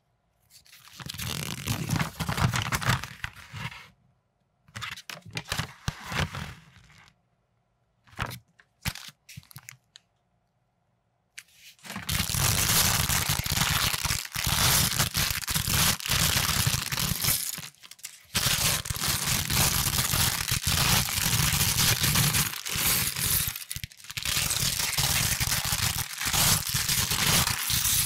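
Clear plastic parts bag of building bricks crinkling and tearing as hands pull it open. The crinkling comes in short spells with silences between for the first several seconds, then runs almost without a break from about halfway in.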